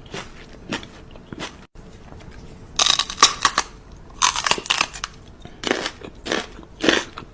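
Irregular crunching and crackling, in loud clusters about three seconds in, around four and a half to five seconds in, and again between six and seven seconds in.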